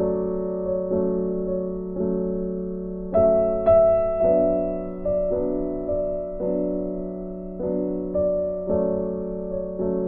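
Background music: soft piano playing gentle chords, each struck note slowly fading before the next.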